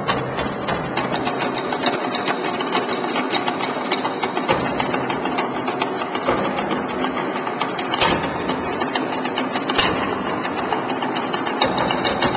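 Fast, dense percussion music played for a costumed dance, with two sharper hits about eight and ten seconds in.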